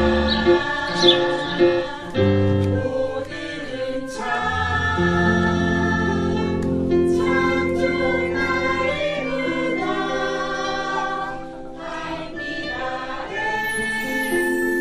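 Music with a group of voices singing together, holding long notes.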